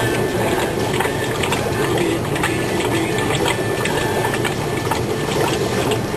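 Steady mechanical hum of an aquarium pump with running water, scattered with short clicks and crackles.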